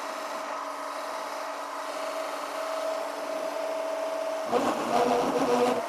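Variable speed mini lathe turning a 1.25-inch cold rolled steel bar at about 1,000 RPM, its drive whining steadily with several tones. About four and a half seconds in, the cut turns louder and rougher as the tool starts to chatter, which the machinist puts down to too much stick-out of the unsupported bar.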